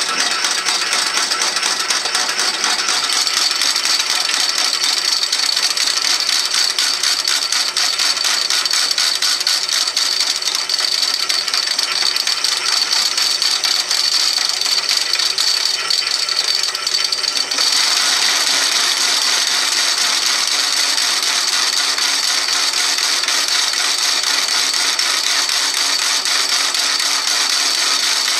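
Metal lathe running in back gear while turning a weld-built-up steel part: a steady, fast rattle from the geared headstock under the cutting tool, with a high whine over it. It gets louder about two-thirds of the way through.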